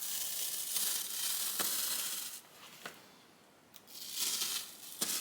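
Utility knife blade slicing through 2-inch-thick foam sheet, a scratchy tearing hiss. It stops for about a second near the middle, then starts again. The blade is too short to pass through the chunky foam in one cut.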